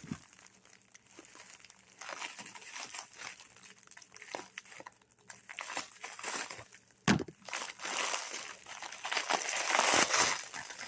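Packaging crinkling in irregular rustles as it is handled and unwrapped by hand, with a single sharp click about seven seconds in. The crinkling grows denser toward the end.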